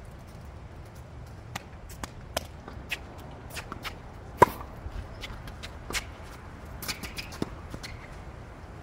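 Tennis rally on a hard court. The loudest sound is one sharp crack of a racket hitting the ball about four and a half seconds in, set among quick footsteps and shoe scuffs on the court and fainter clicks of other hits and bounces.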